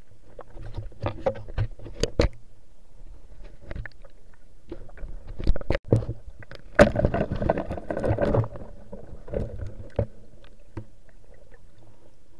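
Underwater noise of a diver moving through a river: irregular knocks and scrapes against the submerged camera, with a busier stretch of churning water about seven to eight and a half seconds in.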